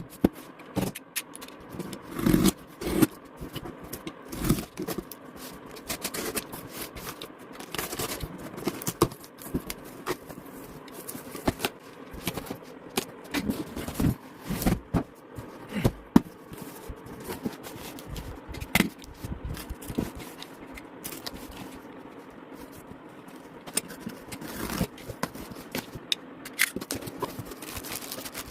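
An air purifier's cardboard box and packaging being handled during unboxing: irregular scrapes, rustles and knocks throughout.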